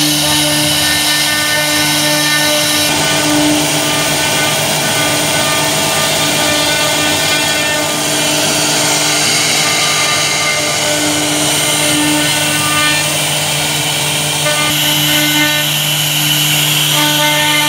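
CNC router spindle running with a V-bit cutting a carved relief into an MDF board: a loud, steady hum and whine, its tones shifting a little a few times as the cut moves along.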